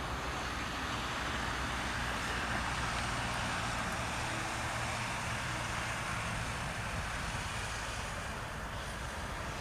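Jet airliner's engines heard at a distance, a steady rushing noise that swells slightly a few seconds in and eases off near the end.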